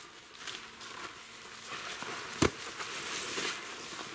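Nylon tent fabric rustling and swishing as a rolled section of the inner tent is unrolled, with footsteps on dry fallen leaves and one sharp knock about two and a half seconds in.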